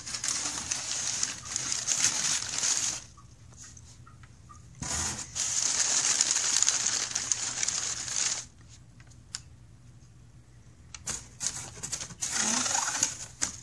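Brown kraft packing paper in a cardboard box rustling and crinkling as it is pulled about, in three long spells with quieter pauses between.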